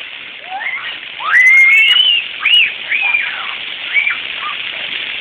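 High-pitched squeals from children playing, a run of short rising-and-falling cries, over the steady rush of falling and splashing water.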